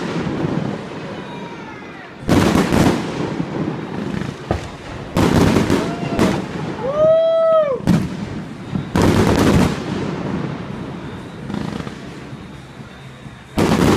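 Aerial fireworks going off: about five loud bangs a few seconds apart, each trailing off into an echo. About seven seconds in, a whistle-like tone rises and then falls just before one of the bangs.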